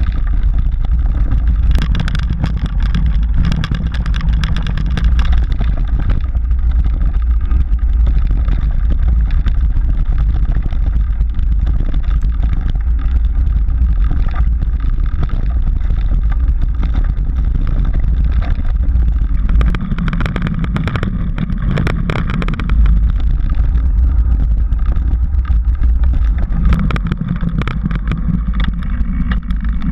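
Mountain bike rolling fast down a rocky dirt trail, with a steady low rumble of wind on the camera microphone and frequent irregular knocks and clicks from the tyres striking stones and the bike rattling. The knocking is busiest a couple of seconds in and again around twenty seconds in.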